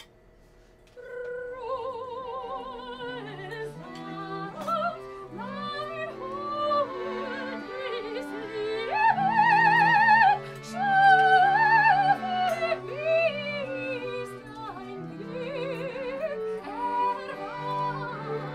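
Soprano singing in operatic style with wide vibrato, over held chords on accordion and cello, starting about a second in.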